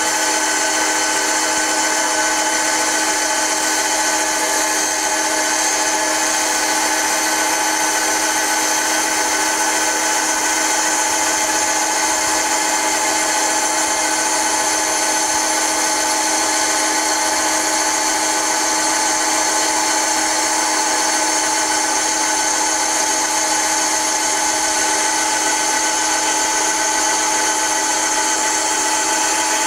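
Woodworking bandsaw running with a steady hum and whine while its blade cuts a curve in a board in short straight segments.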